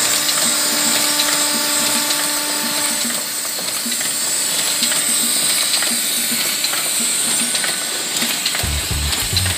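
JPM Xenon high-speed open-cam paper cup machine running: a dense, fast mechanical clatter with a strong hiss. A steady hum with several tones sounds over it and stops about three seconds in.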